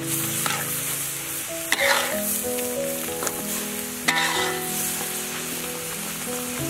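Metal spatula stirring a sizzling pan of chili paste with minced pork and kaffir lime leaves, scraping the pan about two and four seconds in. Soft background music with held notes plays underneath.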